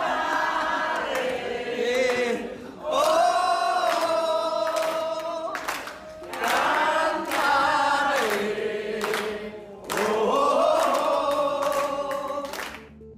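A group of men and women singing a song together in four long phrases with held notes, with hand claps along.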